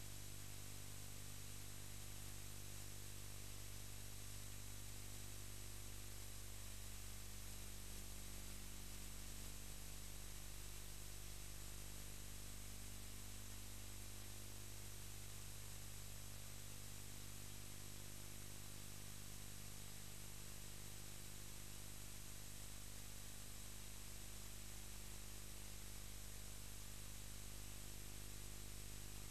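Steady hiss with a low electrical hum underneath and nothing else: the noise floor of a transfer that carries no soundtrack.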